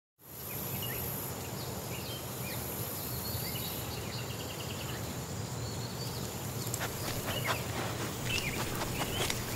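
Outdoor nature ambience cutting in out of silence: a steady high-pitched insect drone, scattered short bird chirps and a low rumble underneath, with a few sharp clicks in the last few seconds.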